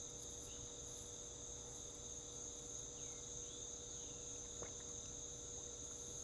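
Steady chorus of crickets.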